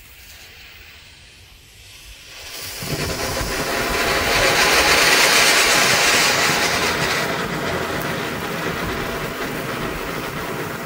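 Small silver ground fountain (Weco 'Silbervulkan' youth firework, category F1) catching about three seconds in and spraying sparks with a steady loud hiss. The hiss swells to its loudest a few seconds after it catches, then eases slightly.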